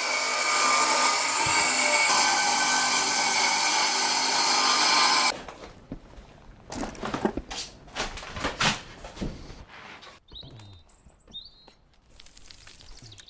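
A power tool running steadily and loudly, cutting off abruptly about five seconds in. After it come scattered knocks and clatter, with a few short high chirps near the end.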